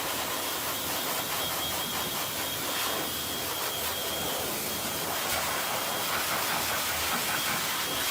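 A steady, even hiss of noise with a faint high tone running through it.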